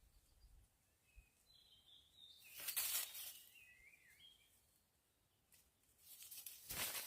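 Faint, short bird chirps, broken by a loud burst of rustling noise a few seconds in and more rustling near the end.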